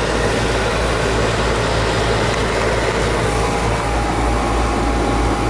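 Heating equipment running with a steady low mechanical hum and rumble, a thin steady whine joining it about three seconds in. No bang is heard.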